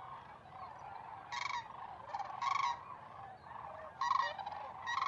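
Sandhill cranes calling: a steady chorus of a flock with several louder rolling calls standing out.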